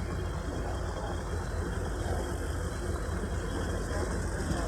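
Cessna 182Q Skylane's piston engine running steadily as a low, even rumble, growing slightly louder near the end.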